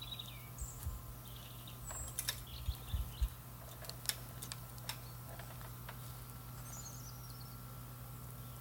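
Small birds chirping in short calls over a steady low hum, with a handful of sharp clicks and knocks in the middle.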